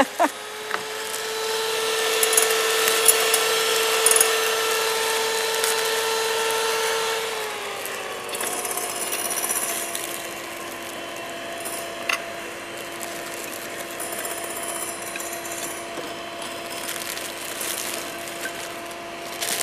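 Electric hand mixer whisking egg whites into meringue, a steady motor whine with the beaters whirring in the bowl. About seven seconds in, the pitch and loudness drop and it runs on steadily at the slower speed.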